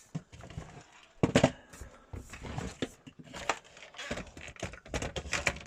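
Hard plastic parts of a Dyson V7 cordless vacuum handled and fitted together: irregular clicks and knocks with short pauses between them.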